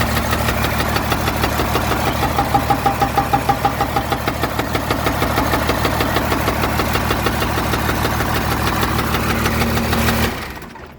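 12-valve Cummins 5.9 L inline-six diesel running with a rapid, heavy rhythmic knock, then shut off about ten seconds in and winding down. The knock is rod knock in an engine the owner calls hurt, with blow-by.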